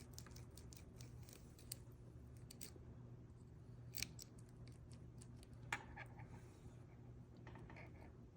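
Small metallic clicks of a 1959 Mercury ignition lock cylinder and key being handled, rapid for the first few seconds, then a few single clicks, over a faint steady hum.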